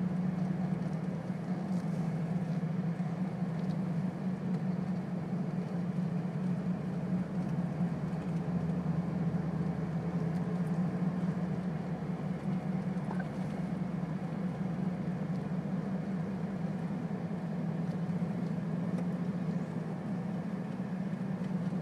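Steady engine and tyre drone heard from inside a four-wheel-drive vehicle cruising on a paved road, with a strong low hum and no change in speed.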